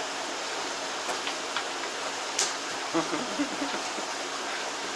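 Steady rushing hiss of aquarium filtration water, with a few light clicks and a soft knock about three seconds in.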